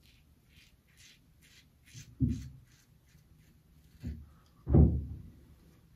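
Replaceable-blade straight razor (a Kai Captain clone with a Feather Pro Guard blade) scraping through thick goatee hair and lather in several short strokes over the first two seconds. Three dull thumps follow, one about two seconds in, one about four seconds in and the loudest just after it.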